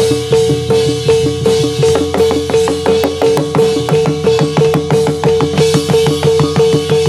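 Jathilan accompaniment music: a fast, driving drum beat with one pitched note struck over and over, about three times a second, in a steady repeating pattern.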